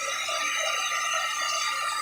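Turbo Styler handheld hair dryer running steadily: a rushing hiss of blown air with a steady high whine from its motor and fan.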